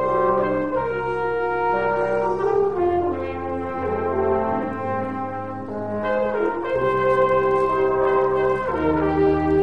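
Live brass sextet of trumpets, French horn, trombone and tuba playing held chords that change every second or so over a sustained tuba bass line.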